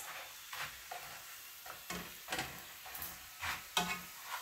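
Corn tortillas sizzling in hot pork lard in a frying pan, with metal tongs tapping and scraping against the pan in several short clicks.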